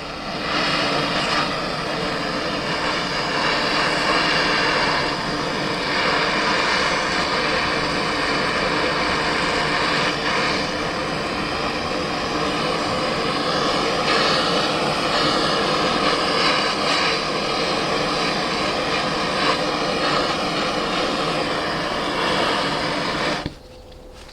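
Torch flame burning steadily with a rushing hiss as it heats a frozen padlock to thaw it, cutting off abruptly near the end.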